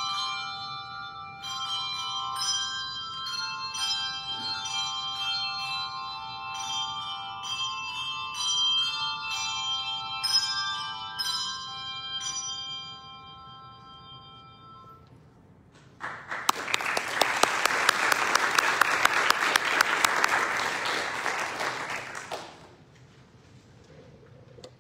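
Handbell choir ringing a melody of bright, sustained bell notes that stop about halfway through and ring away to quiet. A few seconds later a small congregation applauds for about six seconds.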